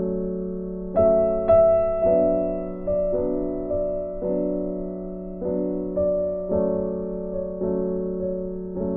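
Background music: a slow, gentle piano tune, its notes struck every half second to a second and left to ring and fade.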